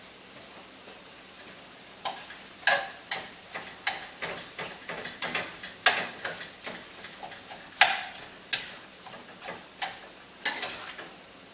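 Spatula scraping and knocking against a stainless steel pot as ground beef is stirred and broken up while it browns, over a faint sizzle. The strokes start about two seconds in and come irregularly, about one or two a second, until near the end.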